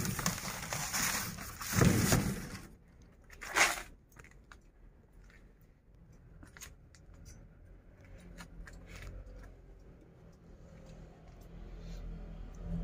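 Cardboard boxes being handled and pulled: a scraping rustle for the first couple of seconds and one more short scrape a second later, then only a few faint light clicks. A low rumble builds near the end.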